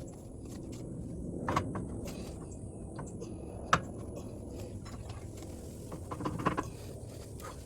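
Scattered metal knocks and clanks from handling the rear axle assembly and tools, the sharpest about three and a half seconds in and a short cluster near the end, over a low steady rumble.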